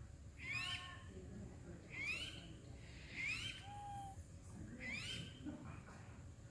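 A bird calling over and over: a short upward-sliding note about every second and a half.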